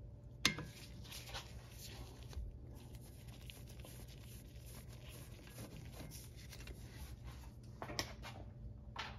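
Faint small metallic clicks and scrapes of a hand tool working the set screws out of a Porsche 993's rear brake rotor hat. A sharper click comes about half a second in, and two more near the end, over a low steady hum.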